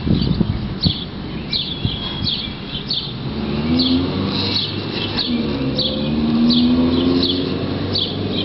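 A songbird chirping over and over, about twice a second, while a car drives by from about three seconds in, its engine pitch rising and falling as it passes. A thump or two near the start.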